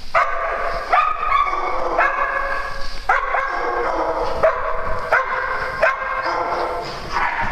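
Several small dogs barking and yipping, with fresh calls starting about once a second.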